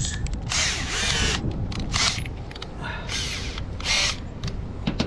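Cordless drill running in several short bursts, its whine rising and falling in pitch, as it backs hex-head screws out of a metal roof panel.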